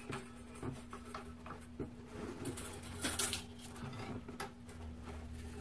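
Handling noise from restringing a 1926 Martin T-18 tiple: scattered faint clicks and short rustles as new strings are worked through the slotted-headstock tuners, over a steady low hum.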